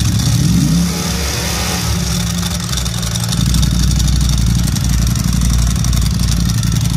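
Ducati Streetfighter V4 SP's 1103 cc V4 engine on its stock exhaust: a blip of the throttle falls back within the first two seconds to a steady, lumpy idle. The rattle of its STM dry clutch runs along with it.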